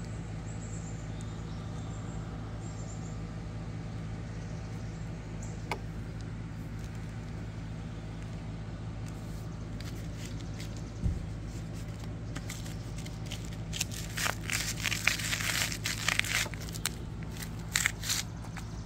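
Flip-flops scuffing and rustling as feet slip into them and shuffle on concrete, a cluster of crinkly scrapes over the second half, with a single low thump just before. A steady low hum runs underneath.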